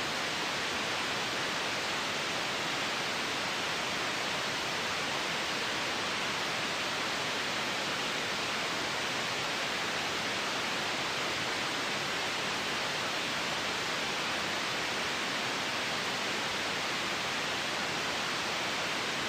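Baby-sleep white noise: a steady, even hiss that does not change.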